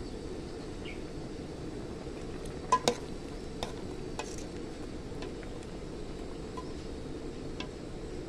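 Metal ladle stirring a boiling mushroom curry in a metal pot, clinking against the pot several times, loudest twice just under three seconds in, over the steady noise of the boiling pot.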